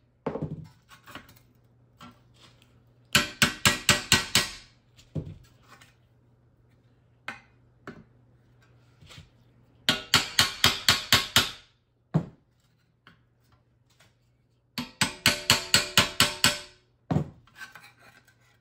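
A hammer tapping a round-tipped chisel against a metal dash capping on an anvil, knocking out dents along its edge. The strikes come in three quick runs of about eight or nine, roughly six a second, each with a short metallic ring, and a few single taps fall between the runs.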